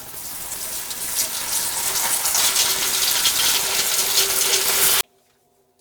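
A steady hiss of spraying air or liquid, growing louder and cutting off suddenly about five seconds in.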